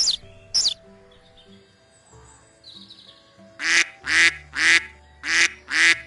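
A duck quacking six times in an even series, about two quacks a second, starting a little past halfway. Before it, two short high bird chirps with a falling pitch sound at the very start, over soft background music.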